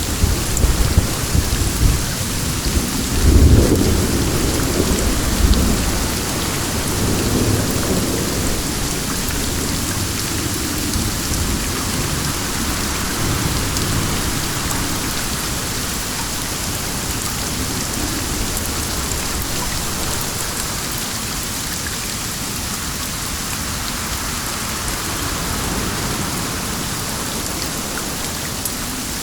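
Steady rain falling, with a low rumble of thunder in the first several seconds, loudest about three to four seconds in, that dies away to leave the even patter of the rain.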